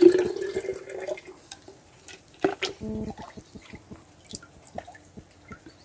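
Tomato-spray mixture draining through a strainer funnel into a garden sprayer's tank, in irregular drips and small splashes, with light rain dripping around.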